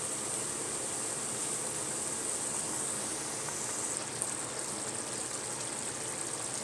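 Chicken curry cooking in a pan on a gas stove: a steady sizzling hiss. About four seconds in it changes to a lighter crackle as the thinned curry bubbles at a boil.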